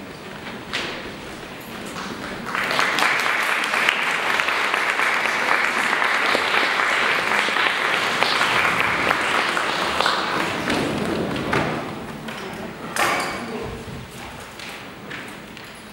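Audience applauding, starting suddenly a couple of seconds in and dying away after about eight seconds, followed by a few scattered knocks and taps.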